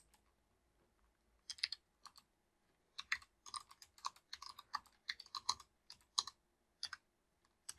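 Typing on a computer keyboard: irregular, faint key clicks that begin about a second and a half in.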